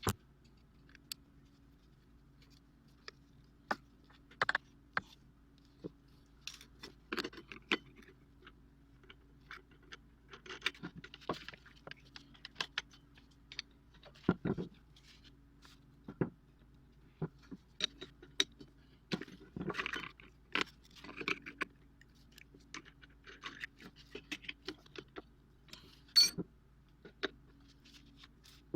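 Small hard objects being handled: irregular clicks, taps and light metallic clinks and rattles, with a faint steady low hum underneath.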